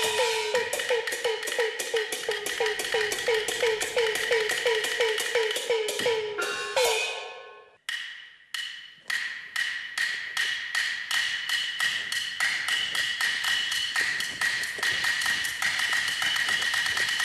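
Chinese opera percussion accompanying stage combat: sharp clapper or woodblock beats about three to four a second, each with a ringing gong stroke. About six seconds in the beats speed up into a roll that cuts off suddenly, then start again, quicker and denser, over ringing cymbal tones.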